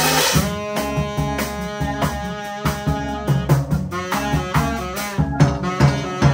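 Live band playing funky mod jazz, with sustained melody notes over a steady drum beat.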